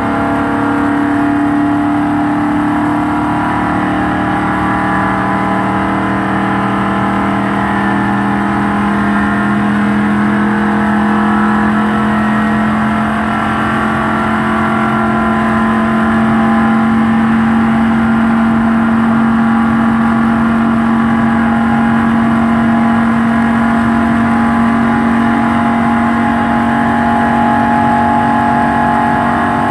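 NASCAR stock car's V8 engine running hard at full speed around a banked oval, heard from inside the cockpit. The engine note eases slightly lower over the first dozen seconds, then holds steady.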